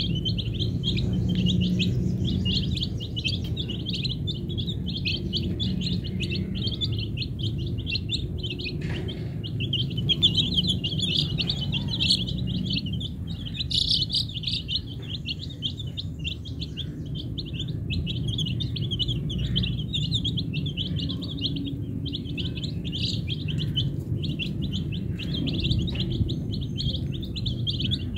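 A flock of young domestic chicken chicks peeping constantly, a dense chatter of short, high cheeps.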